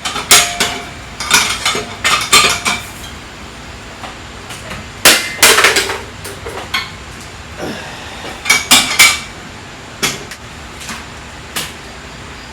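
Irregular metallic clanks and clinks of wheel parts and tools being handled, a dozen or so sharp knocks in uneven clusters with pauses between.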